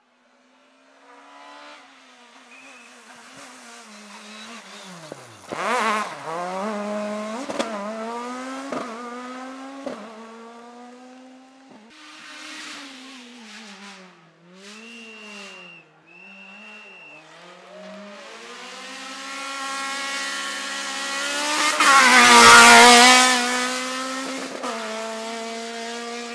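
Rally cars at full throttle on a tarmac stage, engines revving hard with quick upshifts as they approach and pass close by. Two short high-pitched squeals come about halfway through, and the loudest pass is near the end.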